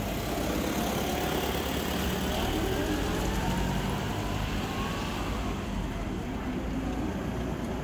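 A motor vehicle's engine idling steadily, a low even rumble.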